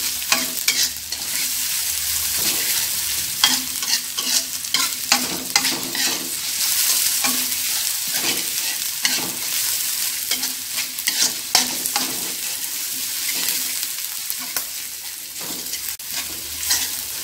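Chopped shallots, chillies, garlic and shrimp paste sizzling in hot oil in a wok while a metal spatula stirs them, scraping and tapping against the pan many times at an irregular pace. The spice base is being fried until fragrant.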